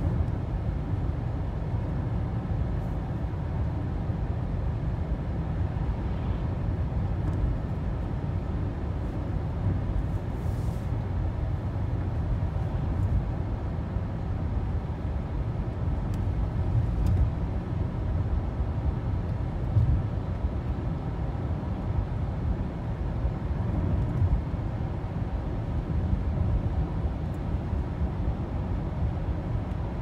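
Steady low rumble of a car driving on pavement, tyre and engine noise heard from inside the cabin.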